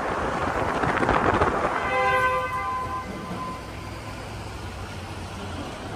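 Wind and road noise from a pickup driving at highway speed, with the wind buffeting the microphone. About two seconds in, a brief horn-like chord of several steady tones sounds. It is followed by a quieter low, steady hum.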